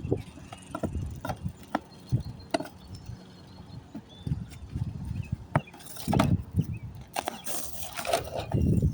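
Asphalt roof shingles being pried up and pulled off: scattered sharp knocks and clicks, with louder scraping or tearing noises about six seconds in and again near the end.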